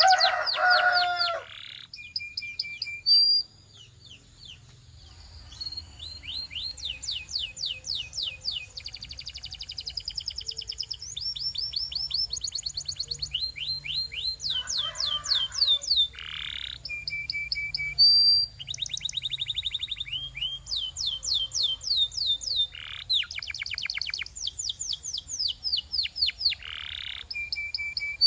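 Domestic canary singing its long song: phrase after phrase of rapid trills, each a quick run of repeated high notes, with short held whistles between them and brief breaks.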